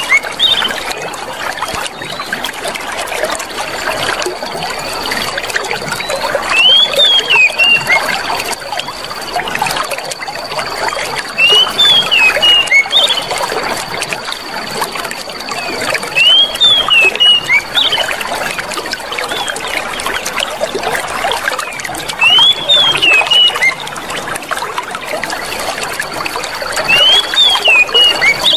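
Clear water running and trickling steadily, with a short cluster of high chirps that recurs about every five seconds.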